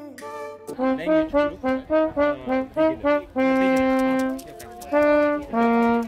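Trombone playing a tune: a run of about eight short notes, then one long held note, then a few more notes near the end.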